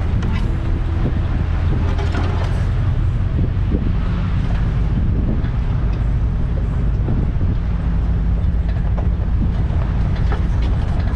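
2001 GMC Sierra 2500HD pickup driving slowly on a rough dirt jeep trail: a steady low engine hum, with scattered knocks and rattles as it rolls over the bumps.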